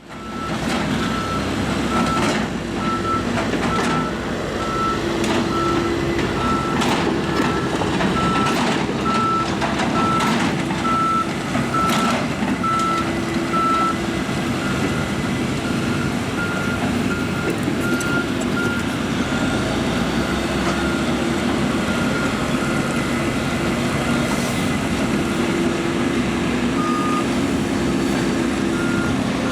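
John Deere 160G excavator's diesel engine running under hydraulic load, its pitch wavering, with a reversing alarm beeping steadily about twice a second and a second, lower-pitched beeper joining near the end. Sharp knocks of metal and material sound now and then in the first half.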